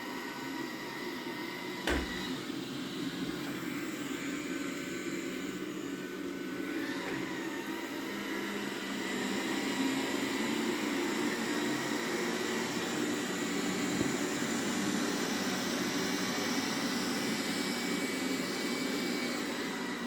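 Roborock Q7 Max robot vacuum running on a carpet: a steady fan whine and brush noise, a single knock about two seconds in, and a louder stretch through the second half.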